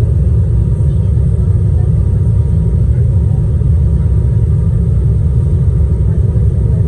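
Airliner cabin noise: a steady, deep rumble of the engines and airflow heard inside the cabin as the plane descends low over the airport to land.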